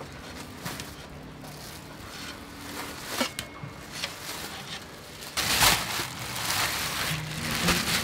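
Thin plastic bag rustling and crinkling as it is handled with fresh fish inside, with a louder burst of crinkling for about a second around five and a half seconds in. Faint background music underneath.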